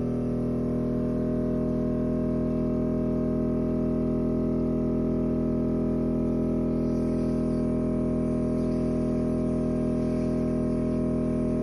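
Ear-wax microsuction machine running with its suction probe in the ear canal: a steady, even hum that does not change.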